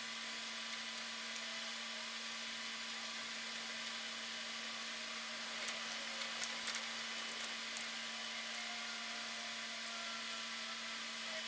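Steady hiss with a low steady hum and a fainter steady tone: the recording's own noise floor, with no real sound captured. A few faint clicks about six to seven seconds in.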